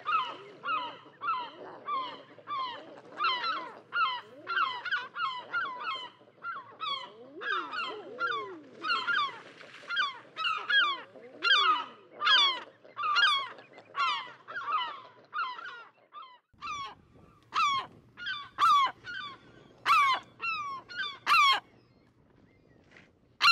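A flock of large birds calling in a fast, steady series of honking calls, each falling in pitch, about two a second, stopping shortly before the end.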